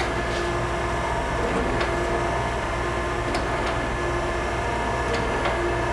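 Okamoto ACC-1224DXV hydraulic surface grinder running with a steady hum from its 5 HP spindle motor and hydraulics, with a few faint ticks scattered through. The grinder is in its automatic cycle, making empty spark-out passes.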